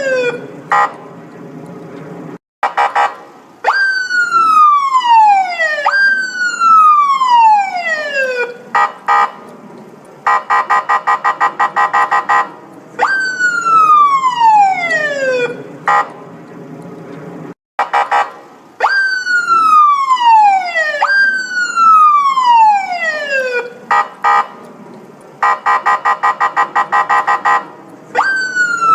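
Police siren sounding in a repeating cycle. Its wail jumps up and slides down over about two and a half seconds, several times in a row. Between the wails come short blips and a stretch of rapid pulsing beeps, about seven a second, and the whole sequence repeats about every fifteen seconds.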